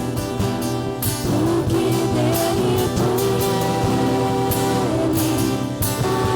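Worship band music: strummed acoustic guitar and drums under a voice holding long sung notes.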